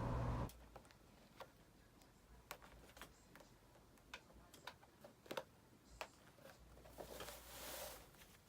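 A steady low hum cuts off about half a second in. Then come faint, irregular small clicks and taps, about a dozen spread through the rest, with a soft brief hiss near the end.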